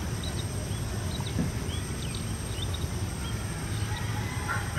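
Short, high chirps of small birds scattered through, over a low steady rumble of outdoor background noise; near the end a longer, steadier call joins in.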